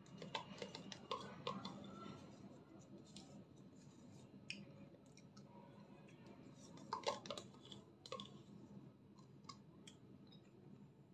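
Faint clicks and scrapes of a plastic spoon against a plastic yogurt cup as yogurt is scooped and eaten, bunched in the first couple of seconds and again about seven seconds in.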